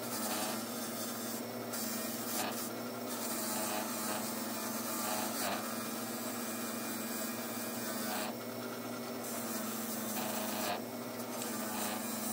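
Powered wire wheel brushing rust off old steel pliers: a steady motor hum under the scratchy hiss of wire bristles on metal, which swells briefly several times as the tool is pressed against the wheel.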